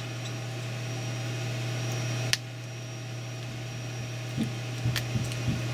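Steady low electrical hum, with two sharp clicks from small plastic parts being handled, about two seconds in and near the end. The later click fits the 3D-printed resin bracket snapping onto the demon-eye LED.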